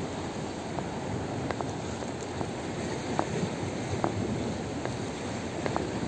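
Outdoor wash of wind on the microphone and small sea waves lapping against the rocky shore: a steady rush with a few scattered light ticks.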